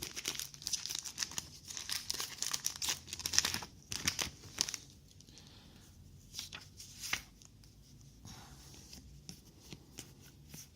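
A trading card booster pack wrapper being torn open and crinkled for about the first five seconds, then fainter clicks and rustles of the cards being handled.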